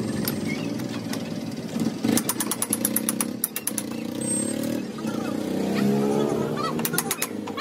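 A motorcycle engine running steadily, with three short runs of rapid sharp clicking.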